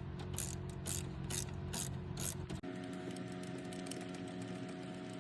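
Ratchet wrench with a 7/16 socket turning a bolt, its pawl clicking about twice a second, then quicker, finer clicking from about two and a half seconds in.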